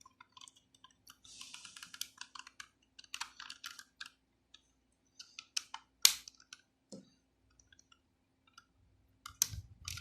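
Small plastic clicks, taps and scraping from a battery-powered smoke and gas alarm's casing being handled, with a sharp snap about six seconds in.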